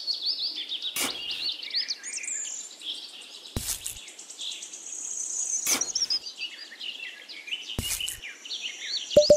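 Birds chirping and singing in a dense chorus of quick rising and falling calls, broken by four sharp taps about two seconds apart. A fast beeping starts at the very end.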